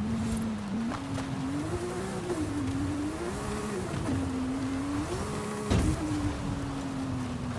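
Sports car engine revving, its pitch rising and falling in about three swells. There is a sharp bang just before six seconds in, the loudest moment.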